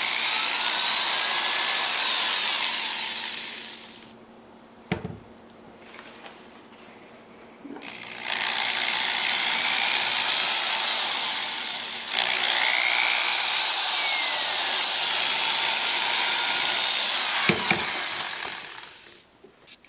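Power drill fitted with a large bit boring into a pumpkin. It runs for about four seconds, stops, then runs again from about eight seconds in, with a short break near twelve seconds, its pitch rising and falling with the speed.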